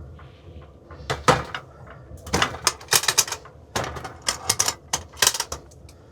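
Cookware and utensils clattering in quick runs of clicks and knocks, starting about a second in, over a low steady hum.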